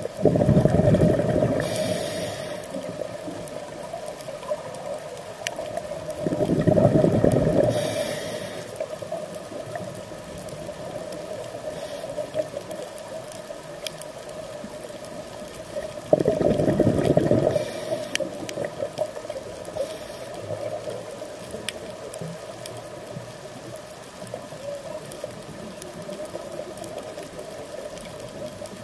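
Scuba regulator underwater: three loud bubbling bursts of exhaled air, at the start, about six seconds in and about sixteen seconds in, each followed by a short hiss of inhalation. A steady hum and scattered faint clicks run beneath.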